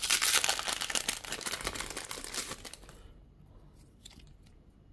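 Foil trading-card pack being torn open and crinkled, a dense crackle that fades out about three seconds in.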